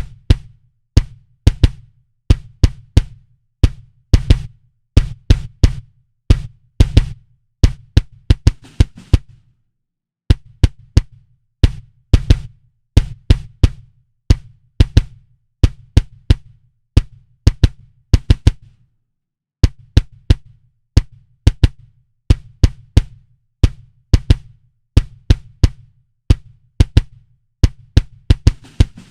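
Solo kick drum sample playing a repeating pattern, each hit a deep thud with a sharp click on top, run through a transient-shaper (envelope) plugin whose release is being adjusted to shorten or lengthen the tail of each hit. The loop pauses briefly about every nine seconds before restarting.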